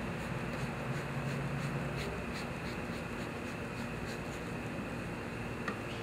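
Steady buzzing of a mass of honeybees swarming over an opened hive's frames.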